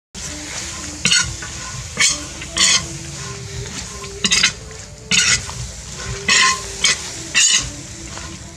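Metal spatula scraping and tossing water spinach (morning glory) in a hot wok over a steady sizzle of frying, with seven or so sharp scrapes at irregular intervals.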